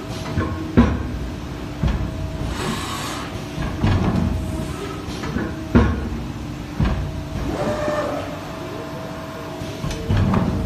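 Automatic blanking machine with robot arm running through its cycle: sharp mechanical clunks from the blanking frame and handling gear every second or two, over a steady machine hum.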